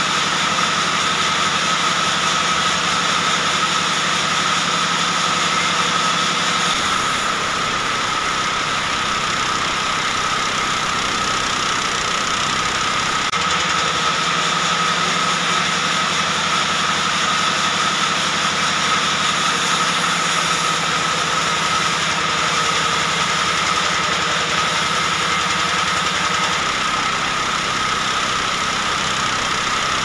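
Sawmill band saw running and ripping a log lengthwise into boards, a steady mechanical noise with a constant high tone; a deeper rumble joins for several seconds near the middle.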